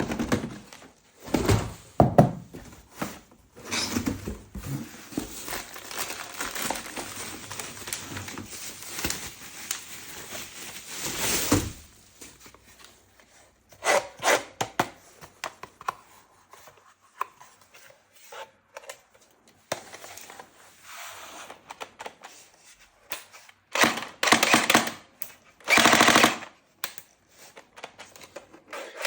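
Toy assault-rifle-style gun firing in rapid bursts: a long run of quick shots, then several shorter bursts in the second half.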